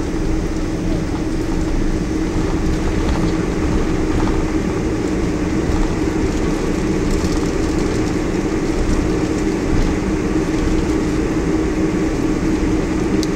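Steady cabin noise inside a Boeing 747-400 rolling on the ground after landing: a constant rumble with a steady engine hum.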